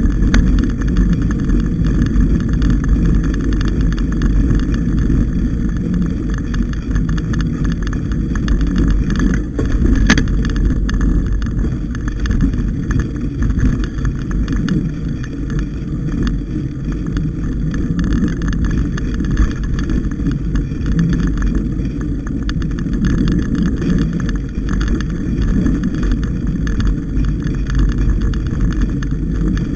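Steady low rumble of a mountain bike ride on a forest singletrack, picked up by a camera mounted on the rider or bike: wind on the microphone and vibration from the tyres and frame, with one sharp knock about ten seconds in.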